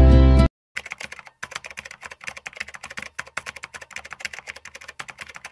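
Music cuts off abruptly about half a second in. A computer-keyboard typing sound effect follows: quick, irregular key clicks, several a second.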